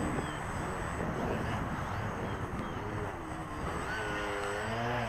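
Electric motor and propeller of a small RC aerobatic plane, a Balsadust 35-inch ultralight Cap 232, buzzing over a steady low rumble. Its pitch rises in the last second and a half as the throttle comes up.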